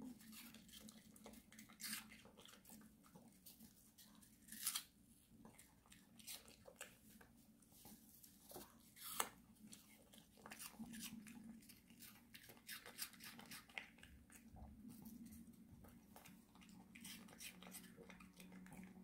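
A Maltese dog chewing crisp pieces of raw vegetable and fruit: faint, irregular crunches and bites, a few of them sharper, over a faint steady low hum.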